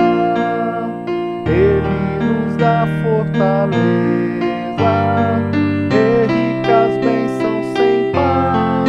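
Digital keyboard with a piano sound playing slow, held chords of B♭ and F major over a root-and-fifth bass, the chord changing every one to two seconds. A man's voice sings the hymn melody over it.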